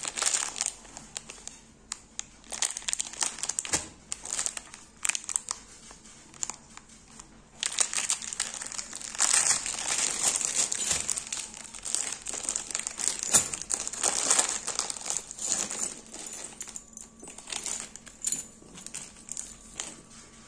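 Plastic and paper packaging crinkling and rustling in the hands as chains are unwrapped from their white packets, in irregular handling bursts. The crinkling is busiest from about eight seconds in to about fifteen, then eases into lighter, sparser rustles.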